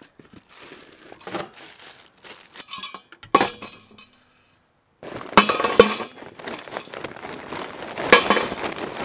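Parts of a small portable charcoal grill being unpacked: crinkling wrapping and a single metal clank about three seconds in. After a short silence, charcoal briquettes clatter out of the bag into the metal grill bowl.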